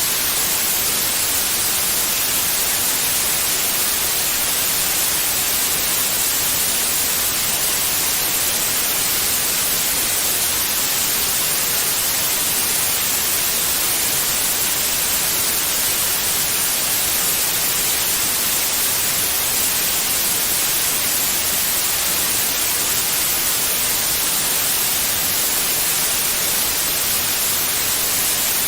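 Steady white noise: an even, unbroken hiss, brightest in the high end, played to soothe newborn babies.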